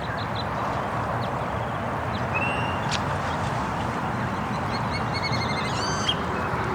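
Young waterfowl peeping in short, high-pitched calls: a few about two and a half seconds in and a quick run near the end. The birds look to the listener like Canada goose goslings. A steady rushing noise runs underneath.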